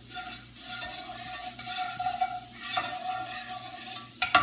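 Butter melting and sizzling in a hot skillet while a spatula stirs and scrapes it around the pan, with a faint steady tone underneath. Near the end come a few sharp clacks of the spatula against the pan, the loudest sounds.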